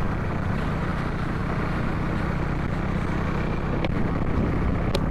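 Motorcycle engine running steadily at cruising speed, with wind rushing over the microphone. Two faint clicks near the end.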